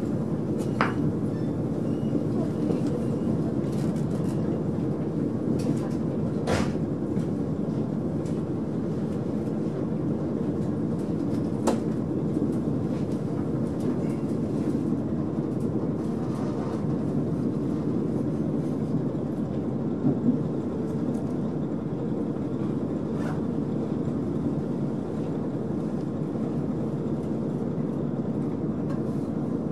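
Running noise of a KiHa 40 diesel railcar heard from inside the passenger cabin at about 40 km/h: a steady low rumble of the railcar underway, with a few sharp clicks scattered through.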